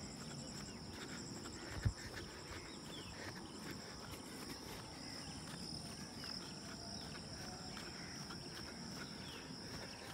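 Rural outdoor ambience: insects droning steadily at a high pitch, scattered bird chirps, and the walker's footsteps. A single sharp thump about two seconds in.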